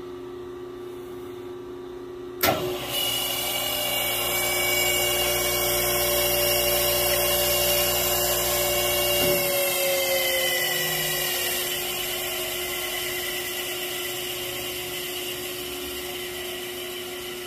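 A 1945 GE three-phase 5 hp radial arm saw motor, running without a blade, is switched on with a click about two and a half seconds in. It runs up to speed with a loud, high whine (it "screamed pretty loud"). About nine seconds in the power is cut, and it begins a long coast-down, its whine slowly falling in pitch. A rotary phase converter hums steadily underneath.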